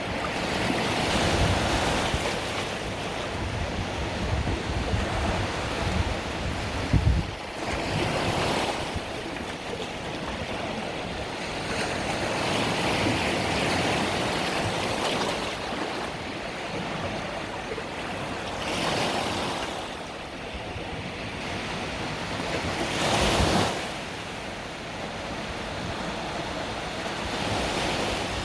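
Mediterranean sea waves breaking and washing up the shore, a fresh wave surging in about every five seconds in an unbroken hiss of water.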